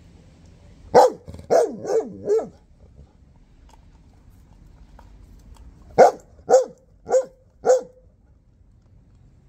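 Bernese mountain dog barking, two runs of four quick barks about five seconds apart, each bark dropping in pitch: demand barking to get its chew bone back.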